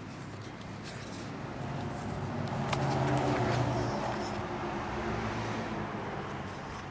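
A road vehicle passing, its engine hum and road noise swelling to a peak about three seconds in and then fading away. A light click comes just before the peak.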